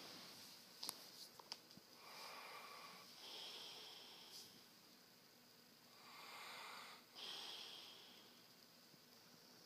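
A person snoring faintly in sleep: two slow breaths about four seconds apart, each a noisy swell in two parts. A few faint clicks come in the first two seconds.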